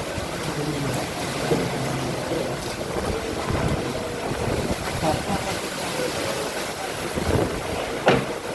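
Heavy rain and strong gusting wind, with the wind buffeting the microphone and a faint engine hum underneath. One sharp knock comes near the end.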